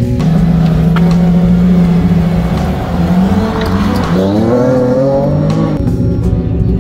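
Performance car engine running with a steady low drone. About three and a half seconds in, it revs up, the pitch rising for around two seconds as the car accelerates away, then dropping off.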